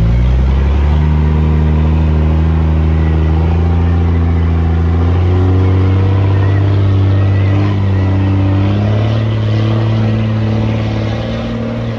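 Unimog truck's engine pulling under load as it climbs a steep dirt hill: the revs rise in the first second, then hold steady with small shifts in pitch about halfway through and again near the end.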